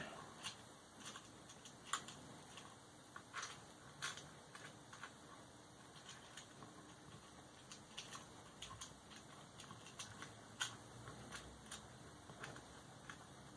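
Faint, irregular small clicks and taps of wires, small electronic parts and tools being handled while wiring up a model railway's control electronics, over a low steady room hiss.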